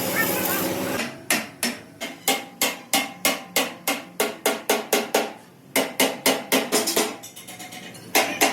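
Hand hammer striking metal in a steady rhythm, about three blows a second, each with a short metallic ring. It starts about a second in and pauses briefly twice.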